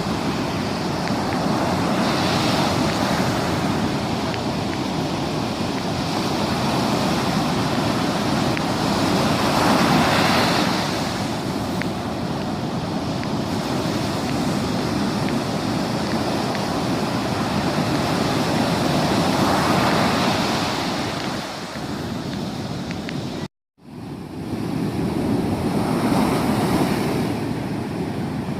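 Sea waves breaking and washing up on a beach, the surf swelling to a peak roughly every eight to ten seconds. The sound drops out for a split second about 23 seconds in, then the surf carries on.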